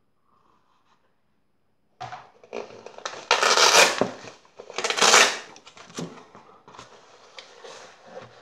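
A black fabric case being handled and opened out on a table: cloth rustling and scraping starting about two seconds in, with two louder swishes about a second and a half apart and a few light knocks.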